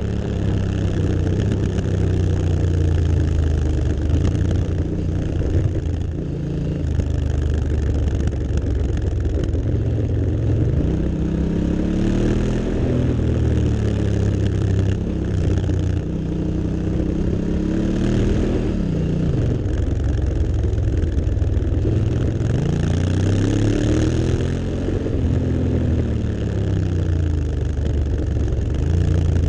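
Honda Africa Twin CRF1000's parallel-twin engine running at speed, its revs climbing and dropping several times through the lap, under a steady rush of wind noise.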